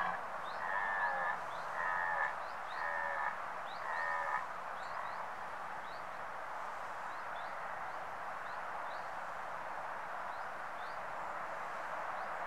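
Red deer stag roaring in its rutting call, a run of short pitched bellows that ends about four seconds in. After that there is only a steady hiss with faint, regularly repeated high chirps.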